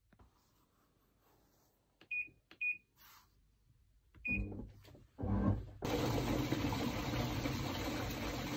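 Three short high electronic beeps, like an appliance's buttons being pressed, then a few heavy knocks, and then a loud steady whirring noise that starts abruptly about six seconds in.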